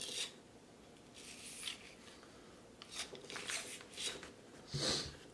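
Bore brush on a brass cleaning rod scraping in and out of the barrel of a .357 Magnum Ruger New Model Blackhawk, in several separate rubbing strokes, the last one louder, spreading solvent down the bore.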